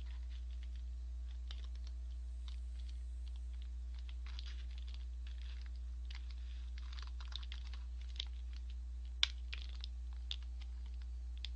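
Small irregular clicks and scrapes of a plastic food cutter working through tteokbokki rice cakes in a plastic takeout container, busier in the second half with one sharper click, over a steady low electrical hum.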